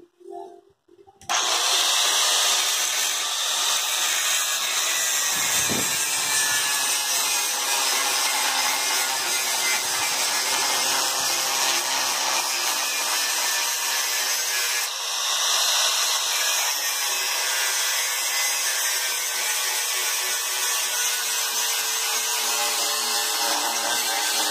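Angle grinder cutting metal, starting abruptly about a second in and running steadily, with a brief easing about halfway through.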